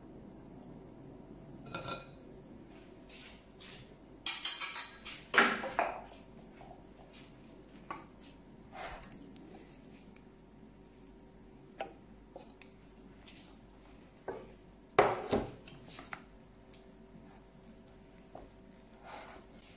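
Stainless steel cookware clinking and knocking as cooked noodles are tipped from a metal mesh strainer into a steel pot and sauce is poured in from a pan. A loud cluster of clatters comes about four to six seconds in and another about fifteen seconds in, with lighter taps and scrapes between.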